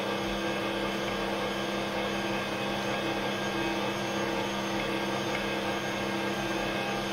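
Bosch MUM58L20 stand mixer running steadily, its kneading hook turning through crumbly biscuit dough in the stainless steel bowl: an even, quiet motor hum with a steady low tone.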